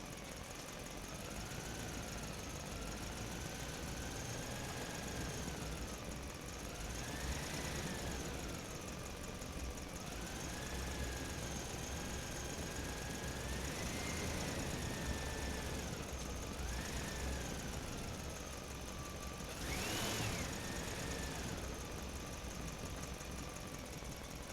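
Radio-controlled truck's electric motor whining, its pitch rising and falling over and over as the throttle is worked, with one sharper rise near the end.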